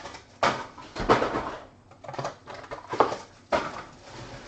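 Handling of a trading card box and its packaging: a series of about five short rustling and knocking noises.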